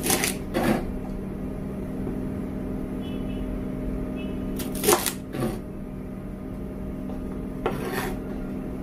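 Chef's knife chopping green beans on a plastic cutting board: a few sharp chops, mostly in pairs about half a second apart, over a steady low hum.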